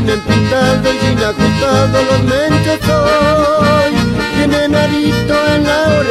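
Chamamé band music, led by accordion over a steady bass beat.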